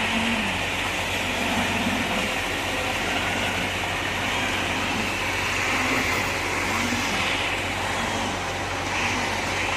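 Concrete pump truck's diesel engine running steadily, with a low swell coming and going every second or two.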